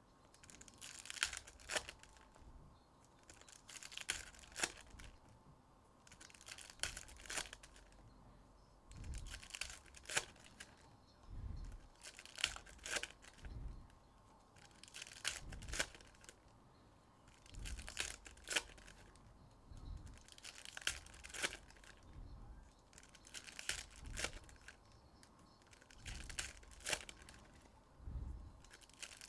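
Foil trading-card packs being torn open and their wrappers crinkled by hand, one pack every two to three seconds, each pack a short burst of tearing and crackling with sharp clicks.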